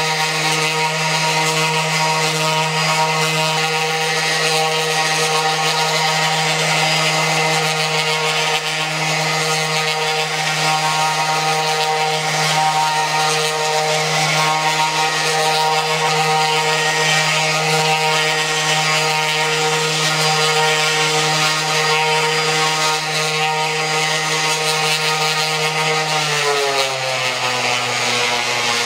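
DeWalt random-orbit palm sander running steadily on a painted wooden box: a motor hum with the rush of the pad on the paint, sanding an oil-paint base coat flat. About 26 seconds in, the motor's pitch drops and it runs on at a lower speed.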